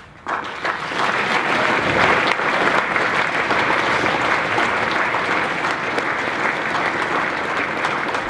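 Audience applause, many people clapping steadily; it starts suddenly just after a name is called and keeps up at an even level.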